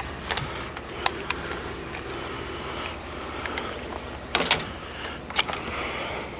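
Scattered light knocks and clicks of scrap items being handled, with a louder clatter about four and a half seconds in, over a steady low hum.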